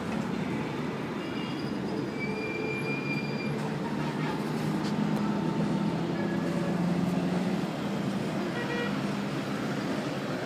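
Steady background traffic noise, with a couple of short horn toots.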